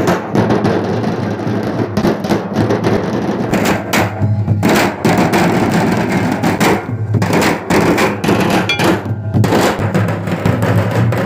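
A group of large double-headed barrel drums, beaten with pairs of sticks, playing a dense, continuous dance rhythm together.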